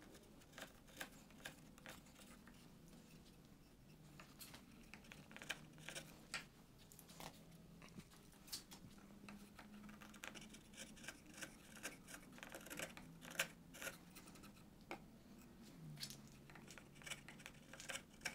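Sharp chisel pushed by hand in small shearing cuts across the curved edge of a wooden board, paring off thin shavings to round the edge over: a faint, irregular run of short slicing scrapes and ticks.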